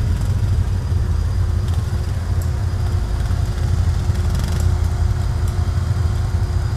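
Several ATV engines running steadily at low revs as the quads work through deep mud, making a dense, even low rumble.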